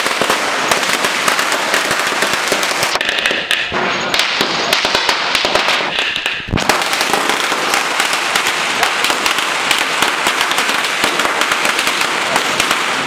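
Firecrackers going off in rapid, unbroken crackling, a dense string of sharp reports with no pause.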